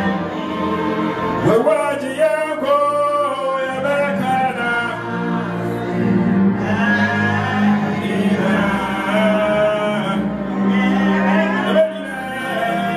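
Worship singing: voices holding and gliding through long sung notes over a steady held accompaniment.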